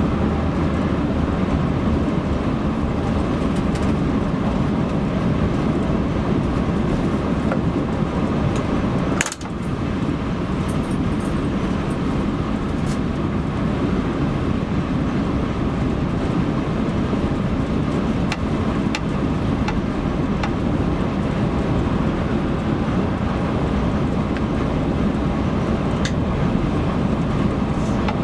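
Steady road noise of a car driving at motorway speed: tyre noise and engine running evenly. There is a short click with a momentary drop in level about nine seconds in.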